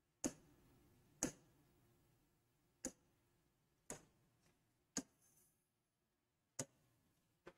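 A stylus tapping on a touchscreen whiteboard's glass: about seven sharp, separate taps at uneven spacing, with near silence between them.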